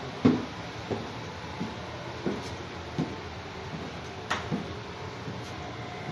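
Footsteps climbing wooden stairs, a low thud about every two-thirds of a second, with a sharper click about four and a half seconds in. The steps turn fainter after that.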